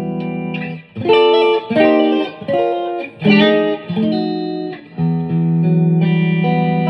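Squier Stratocaster '50s Vibe electric guitar played through an amplifier: a ringing chord dies away, a few short chords follow, and about five seconds in a new chord is struck and left to ring.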